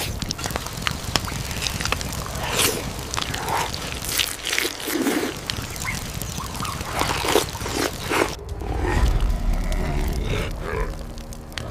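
Campfire crackling with short grunting voices. About eight seconds in, the sound changes to a deep rumble with a low growling tone.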